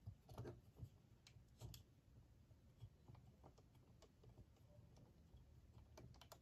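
Faint, scattered clicks and taps of plastic Lego pieces being handled, over near silence.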